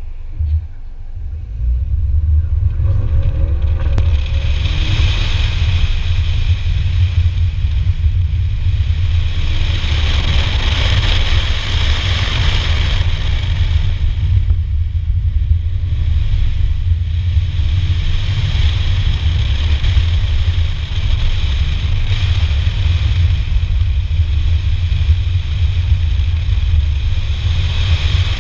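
Mini Clubman John Cooper Works on an autocross run, heard from a camera mounted outside the car: a loud, steady low rumble of wind over the microphone, with the engine rising and falling in pitch as the car accelerates and lifts between the cones. The run gets under way about two seconds in, where the sound jumps up.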